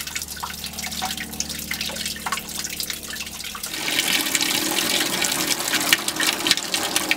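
A 12-volt freshwater pressure pump hums steadily while water runs through the system as the tank is drained. About four seconds in, that gives way to a louder, steady stream of water pouring from the galley faucet into a stainless steel sink as the water system is flushed.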